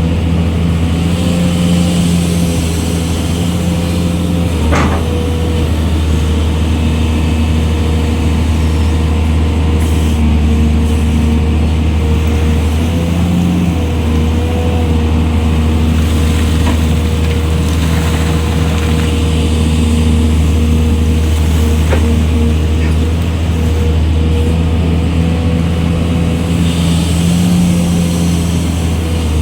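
Excavator's diesel engine running steadily under a steady whining tone, with a few sharp knocks spaced several seconds apart.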